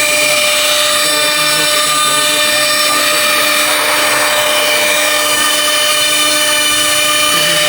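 Blue Elephant ATC CNC router running, its spindle giving a steady high whine made of several tones. A rougher, hissing noise swells in the middle and fades again.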